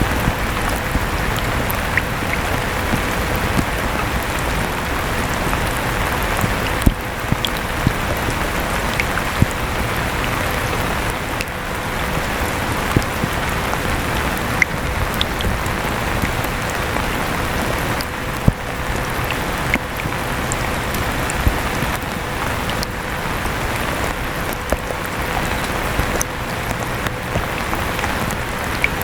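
Electric fan running steadily with a faint even hum, mixed with steady rain and occasional sharp taps of falling drops.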